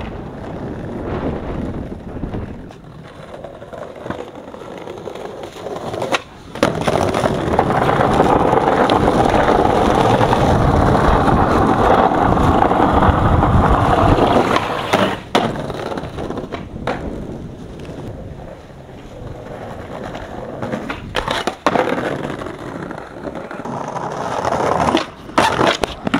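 Skateboard wheels rolling over pavement, loudest and steadiest for several seconds mid-way, with sharp clacks of the board hitting the ground now and then. Near the end the board clatters loose as the skater bails and it skids away upside down.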